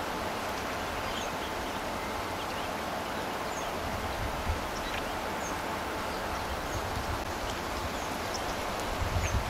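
Outdoor bush ambience: a steady hiss with scattered short, high chirps of small birds, and a low rumble of wind on the microphone near the end.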